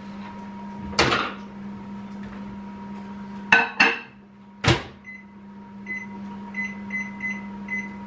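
Microwave oven being loaded and set: a few clunks and clicks, the last and sharpest about halfway through as the door is shut, then a run of about seven short keypad beeps as the cooking time is entered, over a steady low hum.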